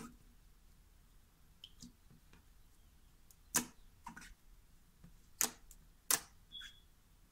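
Clear slime being pressed and squished, giving a few soft sticky clicks and then three short, sharp pops in the second half.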